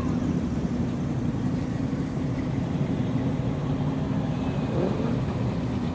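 Steady low rumble of car engines as cars cruise slowly past.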